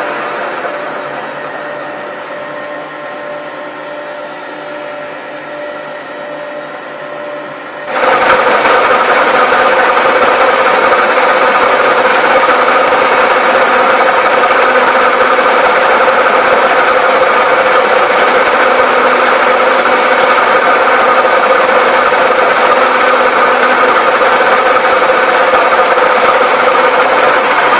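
1V61 screw-cutting lathe running steadily with a held mechanical hum; it is quieter for the first eight seconds, then abruptly gets much louder and stays that way.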